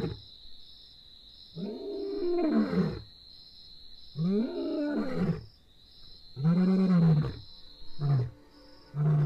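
Male lion roaring: three long, deep roars, each rising and then falling in pitch, followed near the end by shorter grunting calls as the roaring bout winds down.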